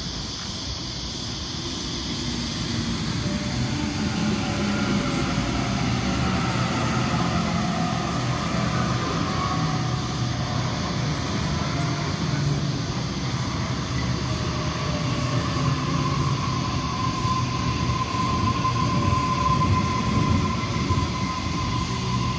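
Waratah electric suburban train pulling into the platform, its motors whining in a pitch that falls as it slows, over the rumble of wheels on the rails. A steady high tone sets in during the last few seconds.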